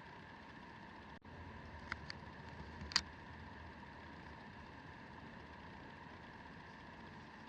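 Faint steady hum with a few light clicks about two and three seconds in.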